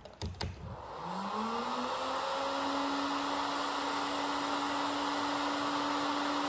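Electric heat gun clicked on, its fan motor spinning up with a rising whine and then running steadily, blowing hot air.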